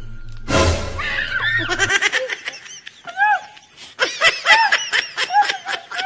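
A sudden loud hit about half a second in, then from about two seconds a fast, high-pitched run of laughter in short repeated bursts.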